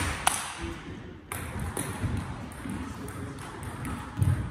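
Celluloid-type table tennis ball clicking sharply off paddle and table twice in the first half second as a rally ends, then only faint scattered ball taps in a large hall.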